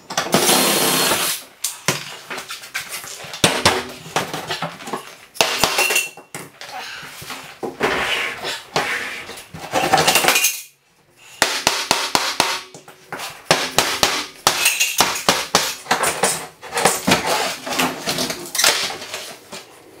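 Cordless drill-driver running in short bursts to take out screws, with metallic clatter and knocks as a kitchen base cupboard is taken apart.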